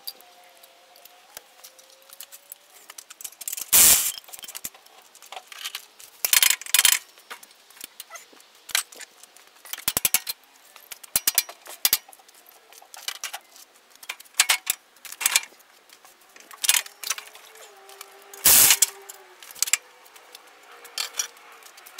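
Scattered metallic clinks, clicks and rattles of hand tools and parts being handled during work on a small go-kart engine, which is not running. The loudest knocks come about 4, 10 and 18 seconds in.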